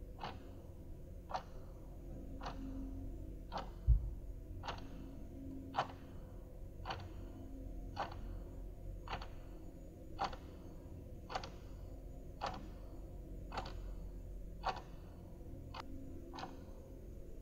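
A clock ticking steadily, about one tick a second. A single dull low thump comes about four seconds in.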